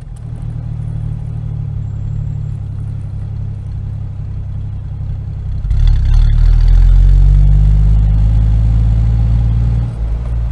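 A motor vehicle engine running steadily with a low hum, growing louder about six seconds in as if speeding up or coming closer, then easing off near the end.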